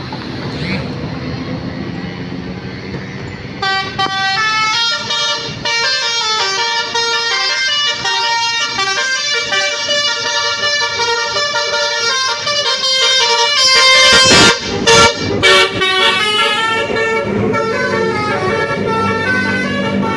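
Bus telolet horn, a multi-tone musical air horn, playing a stepping melody of held notes; it starts about four seconds in, after traffic noise, and carries on to the end, with a few louder blasts partway through.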